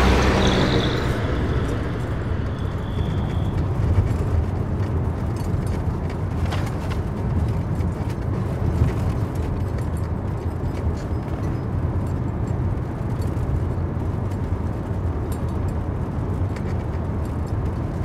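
Steady low rumble of a car driving, engine and road noise heard from inside the cabin. A louder swell dies away over the first two seconds, and a faint high thin tone fades out about three and a half seconds in.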